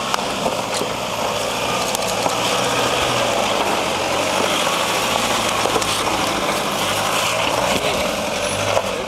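Toyota Prado four-wheel drive's engine running steadily at low speed under load as it crawls up a rocky track, its tyres crunching over rock with a few short knocks.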